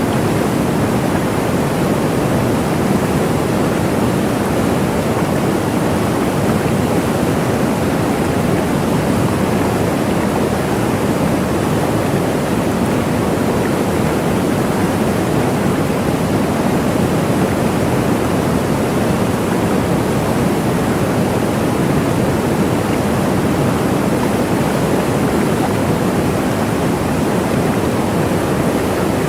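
Waterfall: a steady, unbroken rush of falling water, heaviest in the low-middle range.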